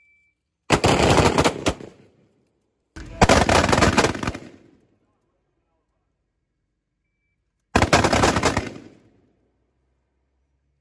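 M4 carbines (5.56 mm) firing on a live-fire range: three quick strings of rapid shots, each about a second long, with a few seconds of quiet between them.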